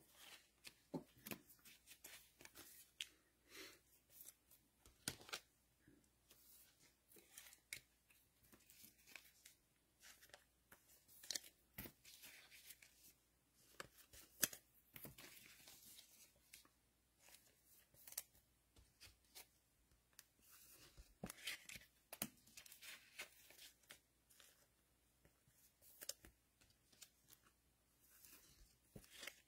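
Faint tearing and crinkling of trading card packaging, with scattered soft clicks and rustles of cards and wrappers being handled.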